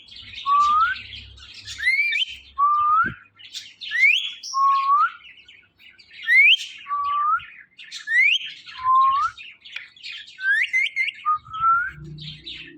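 Ringneck parrot repeating a two-note whistled call about every two seconds, a sharp rising high note followed by a lower rising one, with soft scratchy chatter between them.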